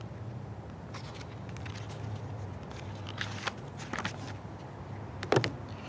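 Paper rustling as the pages of a printed manual and a loose sheet are handled: a few brief crackles, the sharpest about five seconds in, over a steady low background hum.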